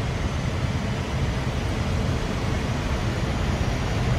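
Steady flight-deck noise of an Airbus A320 on final approach: an even rushing hiss with a low rumble underneath.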